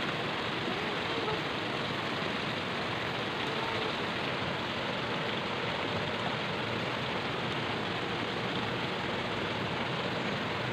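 Shallow river flowing steadily over rocks.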